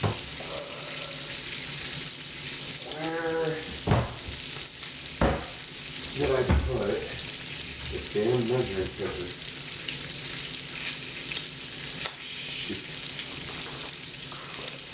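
Bacon strips frying in a pan, a steady sizzling hiss from the rendering grease, with two sharp knocks about four and five seconds in.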